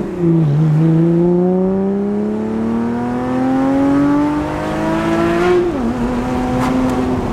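Porsche Cayman with its mufflers cut out and replaced by straight pipes, pulling through the gears. The exhaust note climbs steadily, drops sharply with an upshift about five and a half seconds in, then holds steady.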